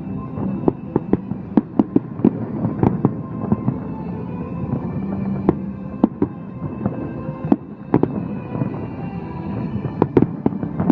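Fireworks going off: a quick run of sharp cracks and bangs in the first few seconds, scattered single bangs after that, and another rapid cluster near the end, with music playing underneath.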